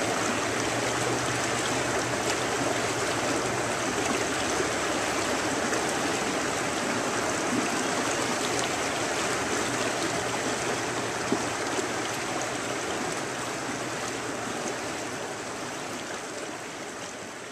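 River water flowing and rippling over shallow riffles, a steady rushing that fades out toward the end.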